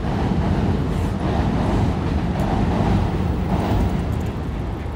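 Steady outdoor city background noise with a strong low rumble, like traffic.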